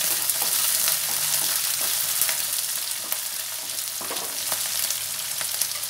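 Chopped onions sizzling steadily in hot oil in a stone-coated kadai, while a wooden spatula stirs them, with a few short scrapes and knocks against the pan.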